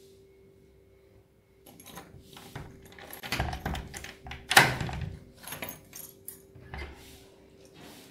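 A wooden door's lock being worked by hand, with keys jangling and metal rattling and clicking. The loudest moment is a sharp clack about four and a half seconds in.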